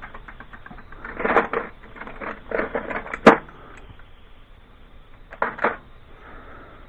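Metal hand tools clinking and knocking against parts in a car's engine bay in scattered bursts. The sharpest, loudest click comes about three seconds in, and two quick knocks follow near the end.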